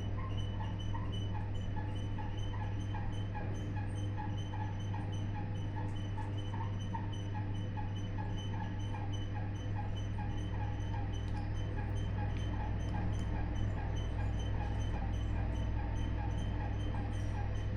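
Pillar freight elevator running: a steady low hum with a high, rhythmic squeak repeating a few times a second, the annoying noise it makes.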